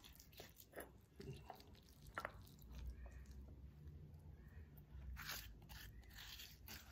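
Faint, irregular scraping and crunching of fingers scooping coarse, moist tamarind and red chilli chutney off the walls of a stone mortar, with a few short clicks.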